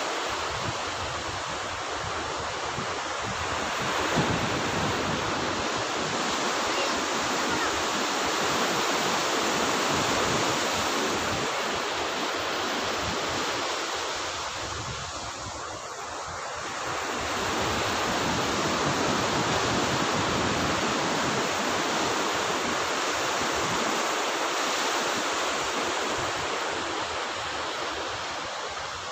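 Ocean surf breaking on a sandy beach: a steady rush of waves that eases for a few seconds about halfway and then swells back.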